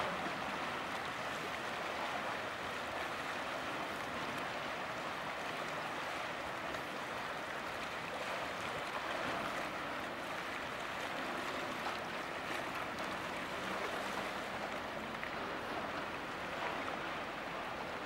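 Steady rushing and lapping of water churned up by a large lake freighter's hull sliding past close along the canal pier wall.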